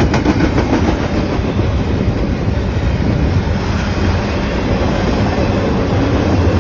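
Freight train cars rolling past on the rails: a steady, loud rumble of steel wheels, with a few light clicks over rail joints near the start and the end.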